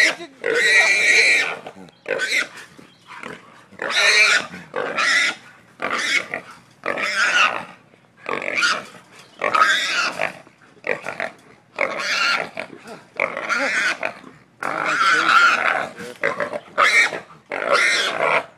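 A hog squealing over and over, a loud squeal about every second, while a catch dog holds on to it.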